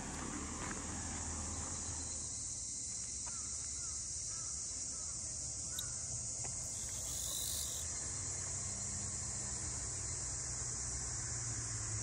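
Cicadas buzzing in chorus, a steady high-pitched drone that holds even throughout.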